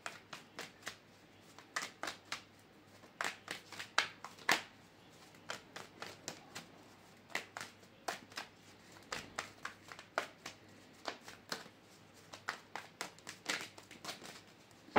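A deck of tarot cards being shuffled by hand: a run of irregular soft clicks and taps, several a second.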